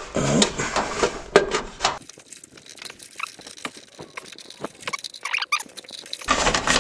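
Hands working speaker wire with a crimped connector through a hole in sheet metal: scattered small clicks, scrapes and rustles, busier for the first two seconds and fainter after.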